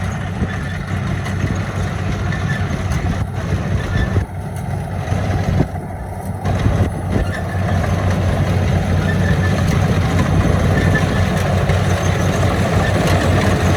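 Rice combine harvester engine running steadily with a low, even hum and mechanical clatter.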